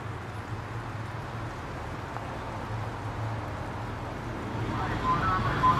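City street ambience: a steady low hum of traffic. It grows louder near the end, where a voice comes in.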